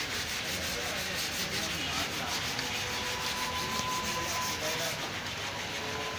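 Quick, even rubbing strokes, several a second, like hand sanding, stopping about five seconds in. A faint steady whine comes in about halfway.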